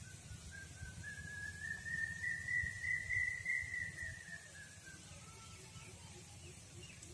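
A single long whistle-like tone lasting about four seconds, gliding slowly up in pitch and then back down before fading, followed by a faint short lower note.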